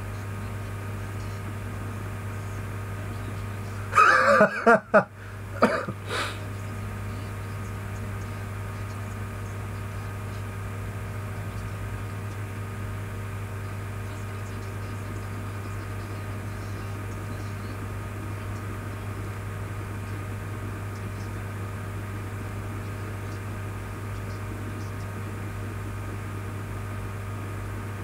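Steady low electrical hum and hiss from a headset or desk microphone in a small room. About four seconds in, a person's voice gives a short, loud outburst in three quick bursts, the last faintest, like a cough or a laugh.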